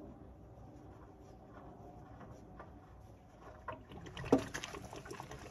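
Socket wrench ratcheting on the drain plug of an RV water heater: faint at first, then a run of irregular metal clicks with one sharper knock about four seconds in.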